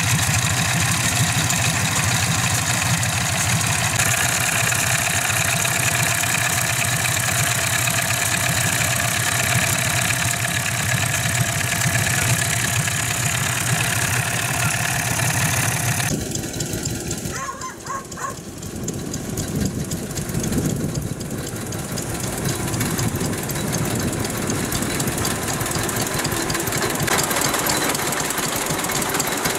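Vintage stationary engines running steadily at idle. About sixteen seconds in the sound changes abruptly to a different engine, briefly quieter.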